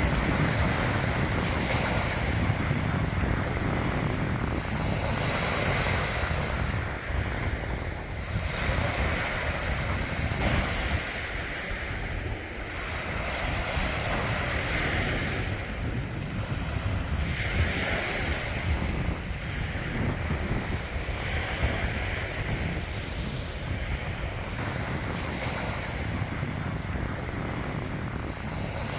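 Sea surf breaking and washing up the beach in surges every few seconds, with wind buffeting the microphone.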